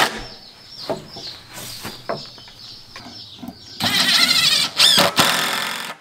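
Cordless drill driving screws into a wooden board, running in two short bursts about four seconds in, its motor whine wavering under load.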